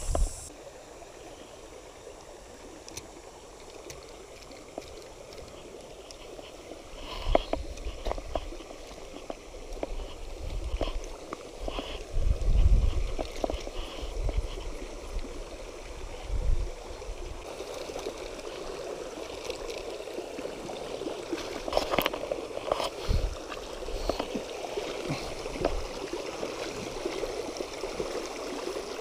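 Shallow creek running over rocks: a steady rushing and gurgling of water that grows louder in the second half. Scattered knocks and thumps from steps and handling on the stony bank, heaviest in the first half.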